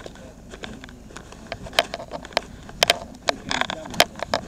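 A run of irregular sharp clicks and knocks that grows busier about halfway through.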